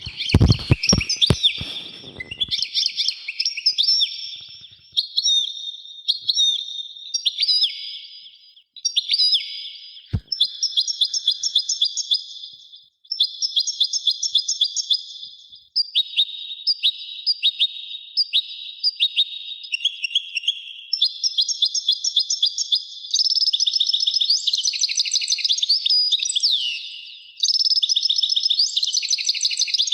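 A songbird singing without pause in fast, high-pitched trilled phrases. There are a few low knocks in the first couple of seconds and another about ten seconds in.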